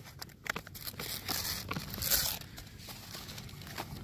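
Sheets of paper and envelopes rustling and shuffling as a hand sorts through a briefcase full of paperwork, in uneven bursts.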